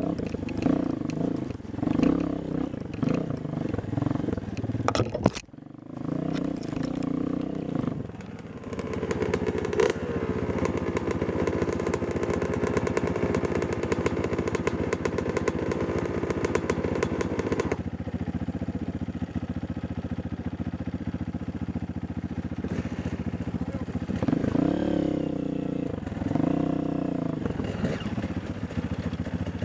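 Dirt bike engines running on a rocky climb: the Honda CRF230F's air-cooled single-cylinder four-stroke idling close by, with revs rising and settling about ten seconds in and swinging up and down again near the end as the bikes are worked up the rocks. There is a brief lull about five seconds in.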